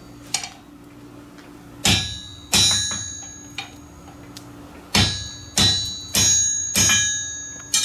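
Blacksmith's hand hammer striking a red-hot iron bar on the anvil, each blow leaving a bright metallic ring. Two blows come about two seconds in, then a steady run of blows a little over half a second apart from about five seconds in.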